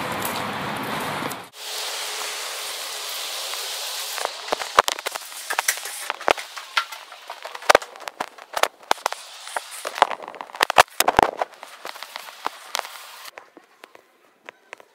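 Handling noise from a handheld camera carried indoors: irregular sharp clicks and knocks over a steady hiss, after a short low rumble at the start. The hiss and clicks stop about two seconds before the end.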